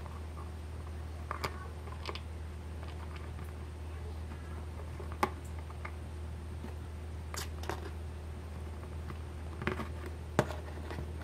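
Scattered sharp clicks and taps of a precision screwdriver and small plastic suspension parts being handled and screwed together, about seven in all, over a steady low hum.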